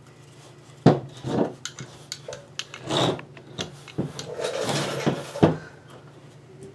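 A cardboard firework tube handled on a workbench: a sharp knock about a second in, then rubbing and scraping of the cardboard, with another sharp knock near the end.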